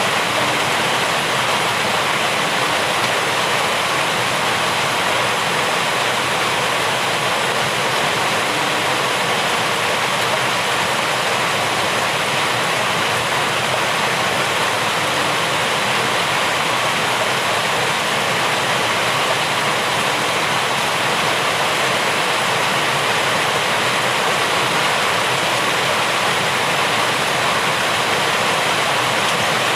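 Steady, dense rainfall: an even, unbroken hiss of water with no single drops standing out.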